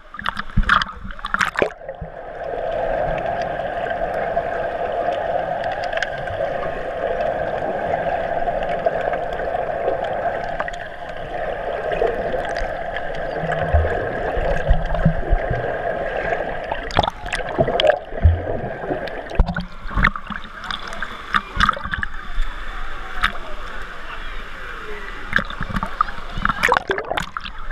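Pool water churning and gurgling heard from under the surface for most of the first two thirds, a steady muffled wash. Later the sound breaks up into choppy splashing and sloshing as the water surges at the surface.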